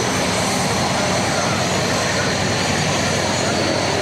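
Aircraft engine noise: a steady, loud, even drone from aircraft running on the apron.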